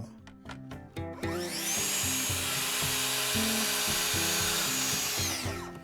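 Track saw cutting through plywood: the blade spins up with a high whine, cuts steadily for about four seconds, then winds down near the end.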